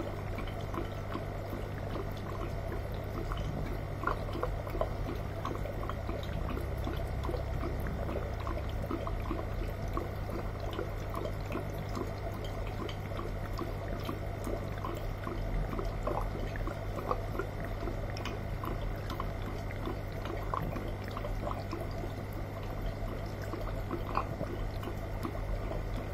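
Aquarium water trickling and bubbling steadily, with a low steady hum underneath: the sound of the tank's filtration running.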